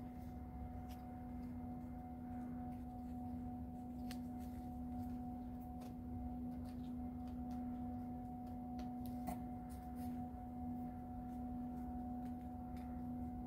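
A steady, single-pitched hum that holds unchanged throughout, with a few faint clicks and rustles from a watch strap being handled and buckled onto a wrist.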